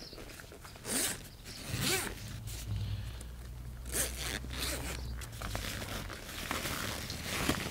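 The zip of a nylon kayak carry backpack being pulled open in several short strokes, with the bag's fabric rustling between them.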